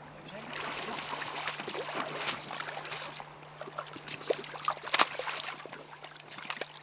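Hooked Atlantic salmon splashing and thrashing in shallow river water as it is beached on the stones, with sharp knocks, the loudest about five seconds in. Near the end, wading boots splash through the shallows.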